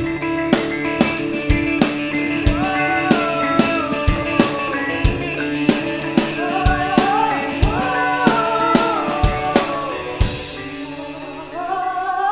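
Instrumental passage of a song: a drum kit beat under a lead line that slides up and down in pitch. Near the end the drums drop out while the lead line rises.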